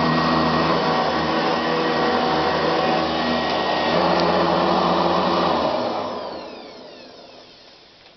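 Eureka Commercial upright vacuum cleaner running steadily, then switched off about six seconds in, its motor whine falling in pitch as it spins down.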